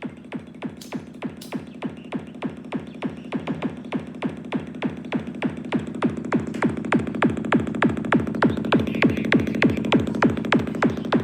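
Electronic dance music played back through an Eclipse Pro portable Bluetooth speaker: a steady kick drum at about four beats a second over a bass and synth bed, building gradually louder.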